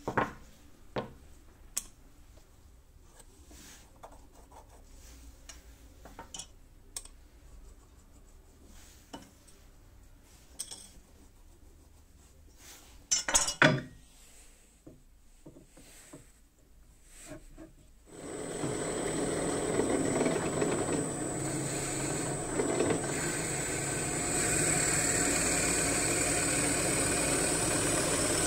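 Scattered knocks and clunks as a wooden block is set down and a steel machine vise is placed on a cast-iron drill press table, the loudest about 13 seconds in. From about 18 seconds in the drill press runs steadily with a high whine, its bit boring into the end of a wooden knife-handle block.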